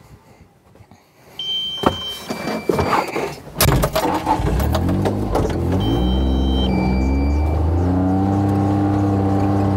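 John Deere 6420 tractor's four-cylinder diesel engine being started. Clicks and two short electronic warning beeps come first; then the engine fires about three and a half seconds in, climbs in pitch, and settles into a steady run.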